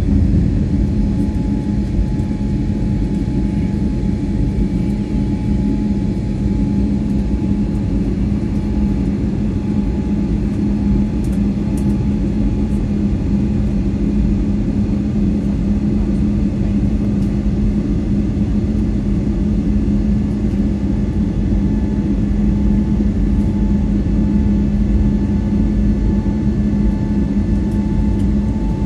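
Airbus A320's jet engines at climb thrust just after takeoff, heard inside the cabin: a steady rumble with a constant low hum.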